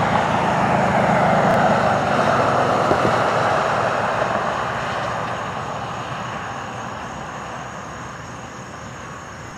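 Ford Expedition SUV passing on the road, its engine and tyres making a broad rushing noise that is loudest a second or two in and then fades steadily as it drives away.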